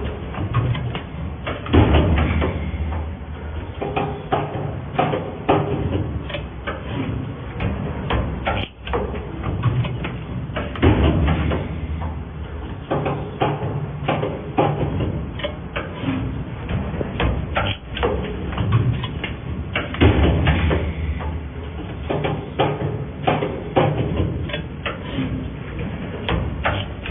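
Control-cable cutting and end-forming machine running, with a steady low hum and frequent, irregular clacks and knocks from its cutting and forming strokes.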